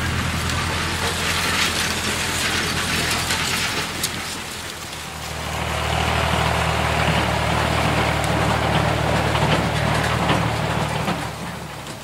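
Farm machinery engine running steadily with a mechanical rattle. It dips about five seconds in, comes back louder, and fades out near the end.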